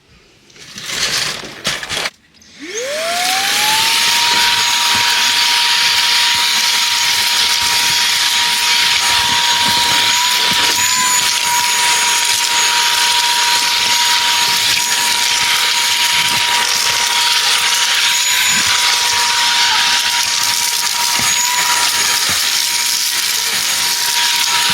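A Klarpul cordless vacuum cleaner is handled with a few knocks, then its motor spins up with a rising whine about two and a half seconds in. It then runs steadily with a high whine and a loud rush of suction air, its pitch dipping briefly now and then as the nozzle meets the car's surfaces.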